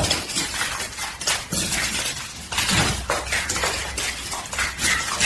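Hard objects clattering and clinking in a quick, irregular run of knocks.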